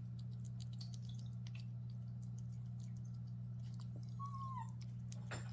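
Cats chewing dry food: scattered faint clicks and crunches over a steady low hum, with a brief high squeak about four seconds in.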